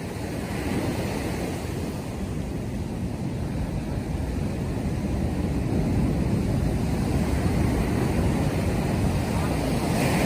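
Ocean surf washing on the beach, with wind rumbling on the microphone; a steady rushing noise that slowly grows louder.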